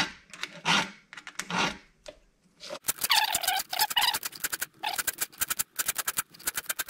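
Round file rasping across a chainsaw chain's cutter tooth in about three strokes, then a quick run of metallic clicking and rattling as the chain links are moved along the bar by hand.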